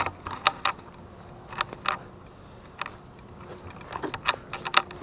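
Footsteps and brush rustling as a person pushes through dense undergrowth: irregular sharp crackles and rustles, clustered a few at a time.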